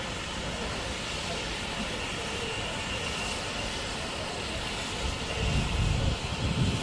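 GWR 5101-class Large Prairie 2-6-2T steam locomotive 5199 moving slowly along the platform, a steady low running sound with a faint high hiss. Its low rumble grows louder about five seconds in as it draws nearer.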